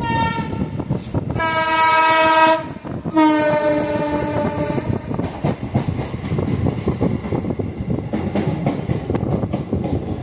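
Train horn sounding two blasts of one steady tone, one of about a second and a longer one of nearly two seconds, with the tail of an earlier blast at the very start. Under it runs the steady rumble of the moving train, with its wheels clattering over the track.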